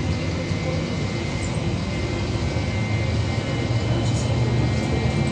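Inside a VMZ-5298.01 trolleybus under way: a steady low rumble of the running vehicle, with a thin steady whine from its electric drive.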